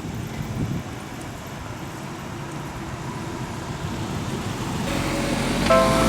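Road traffic rumbling at a level crossing, growing louder; near the end the railway crossing's electronic warning bell starts ringing, a repeated multi-tone ding pulsing at a steady rate.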